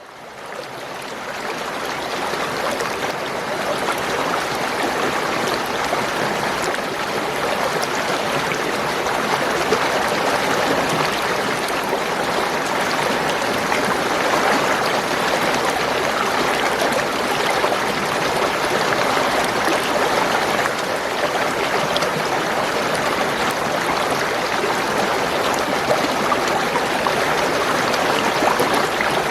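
Spring water gurgling and trickling in a steady, continuous stream, fading in over the first couple of seconds.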